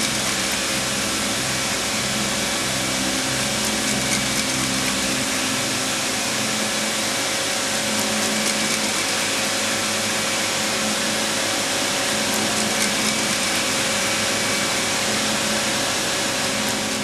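Steady whirring running noise of an industrial machine, with a few steady tones in it and a low rhythmic pulse that stops about five seconds in.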